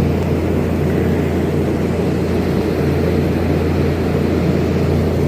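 Steady low mechanical drone of the fish tanks' aeration pumps and blowers: a constant hum with a rumbling layer above it, unchanging throughout.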